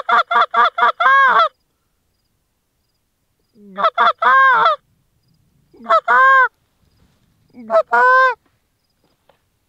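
Goose honks: a fast run of short clucking notes ending in a longer honk, then three more short groups of honks about two seconds apart, each ending in a drawn-out note.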